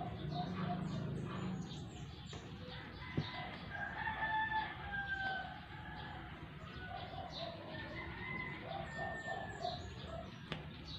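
Bird calls in the background: fowl clucking and crowing, with short high chirps. Two sharp clicks, one about three seconds in and one near the end.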